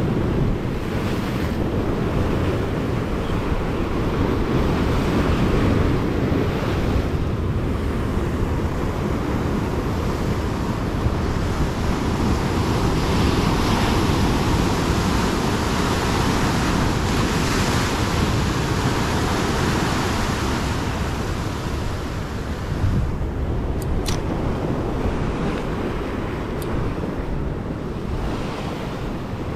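Ocean surf breaking and washing over a rock ledge, rising and easing as the waves come in, with wind buffeting the microphone.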